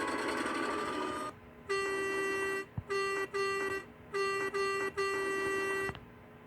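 Train whistle sounding six toots on one steady note, in two groups of three; the first and last toots are about a second long and the others short. These follow the tail of a noisier, slightly rising train horn blast that cuts off just over a second in.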